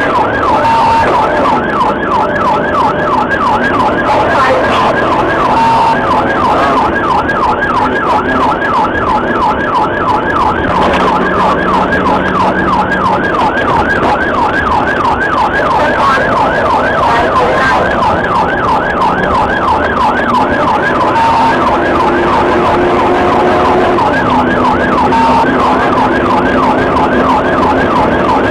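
Police car siren sounding a fast yelp, a rising-and-falling wail repeating about three to four times a second without a break, over road and engine noise during a high-speed pursuit.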